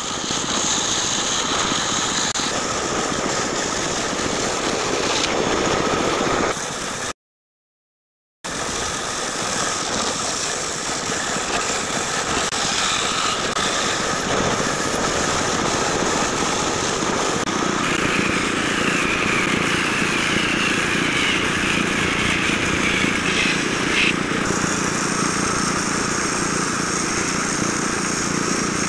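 Large bandsaw running, its blade cutting lengthwise through a thick wooden slab, a steady mechanical noise. The sound cuts out completely for about a second some seven seconds in.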